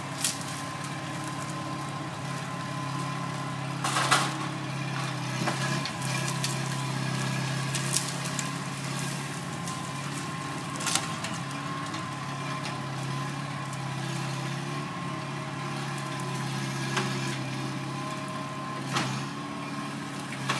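Bobcat skid-steer loader's engine running steadily, with sharp clanks about seven times, the loudest about four seconds in.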